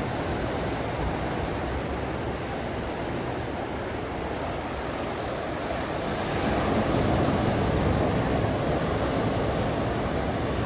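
Sea surf breaking and washing over rocks and sand: a steady rushing that grows louder about two-thirds of the way through.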